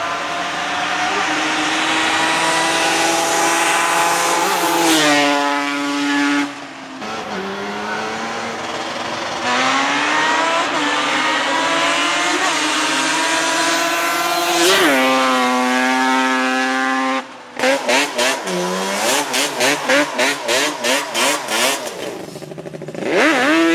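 Yamaha Banshee's twin-cylinder two-stroke engine with Toomey T5 expansion-chamber pipes, making two high-revving passes with the pitch falling sharply as it goes by. It then revs in short throttle blips about twice a second and finishes with a rising rev.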